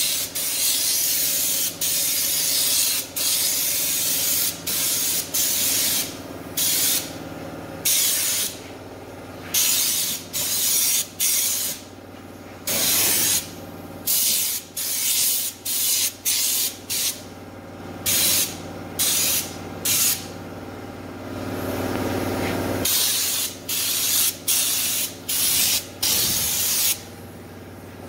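Compressed-air spray gun spraying stone guard underbody coating, hissing in many short bursts as the trigger is pulled and released, each burst from a fraction of a second to about two seconds long.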